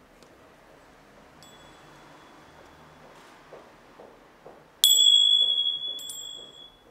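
Small meditation chime struck three times, a faint strike about a second and a half in, then a loud one near five seconds and another a second later. Each rings on one clear high tone that slowly fades.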